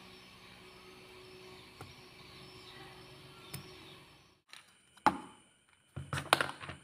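Faint steady hum with a couple of small ticks as a tiny plastic gear is handled on a small motor shaft. From about 5 s in come sharp clicks and a short rattle of metal hex screwdriver bits being handled and pulled from a plastic bit holder.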